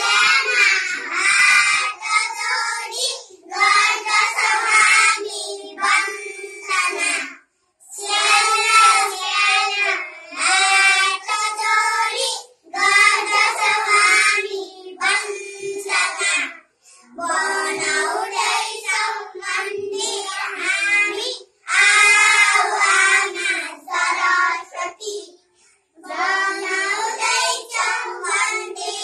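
A small group of young children singing a morning prayer together in unison, phrase by phrase with short breaks between the lines.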